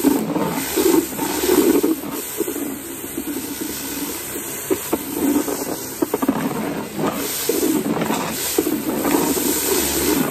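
Karcher K3 electric pressure washer running through its spinning patio-cleaner attachment, water jets blasting across paving slabs as a steady rush of spray that swells and dips.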